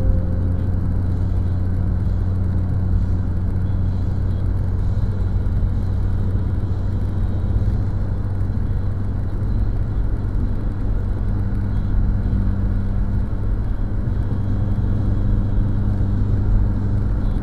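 Car cruising at a steady speed, heard from inside the cabin: an even, low drone of engine and road noise.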